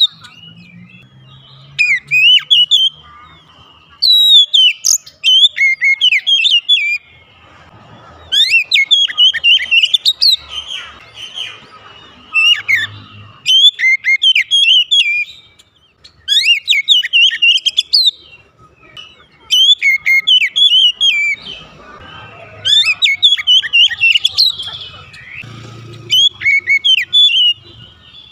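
Oriental magpie-robin singing in repeated bursts of fast, sweeping whistled notes. Each phrase lasts a second or two, with short pauses between.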